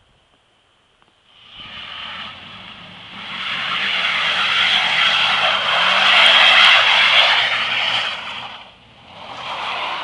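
An old pickup truck driving past on a snow-covered road: tyres hissing through the snow over a low engine note, building from about a second and a half in to its loudest past the middle, then fading. A second rush of noise swells near the end.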